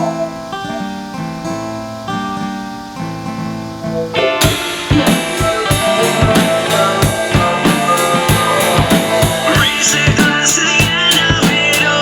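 Rock song intro: guitar notes alone for about four seconds, then the drum kit and full band come in together, with a high wavering lead line joining near the end.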